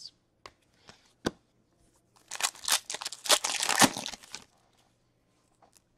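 Plastic wrapper of an Upper Deck hockey card pack being torn open and crinkled by hand, in a dense crackling burst from about two seconds in to about four and a half seconds, after a few light clicks.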